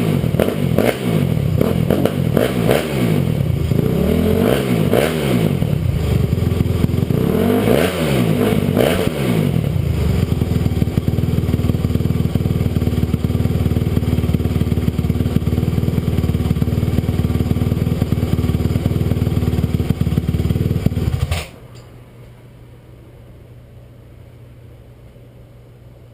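Stock 2007 Honda CRF250R's single-cylinder four-stroke engine revved several times in quick blips, then idling steadily, then shut off suddenly about 21 seconds in.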